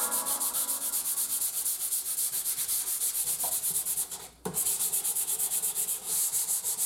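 Hand sanding of a painted wooden panel with a handheld sanding pad: quick back-and-forth scratchy strokes, about five a second, with a brief pause about four seconds in.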